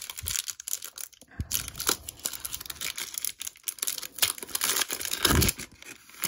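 Foil wrapper of a Topps Chrome Bundesliga trading-card pack being torn open and crinkled by hand: a dense run of small crackles and rustles, with a few louder tears.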